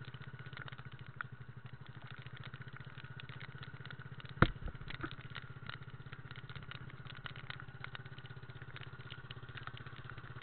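Motorized outrigger boat's engine running steadily with a fast, even putter. One loud sharp knock about four seconds in.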